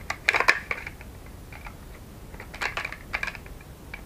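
Light plastic clicking and rattling from a small plastic part being handled and fitted, in two quick clusters: one about a third of a second in, another around two and a half to three seconds in.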